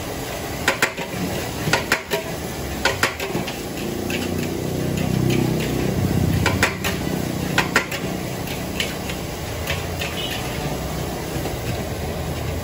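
Metal spatula knocking and scraping against a large steel wok while fried rice is stir-fried, with sharp clanks often in pairs every second or so, over a steady sizzle. A low engine hum swells and fades in the middle, like a passing vehicle.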